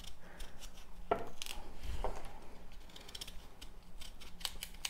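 Small paring knife cutting the hard rind off a slice of raw pumpkin: a run of short, crisp scraping cuts at irregular spacing.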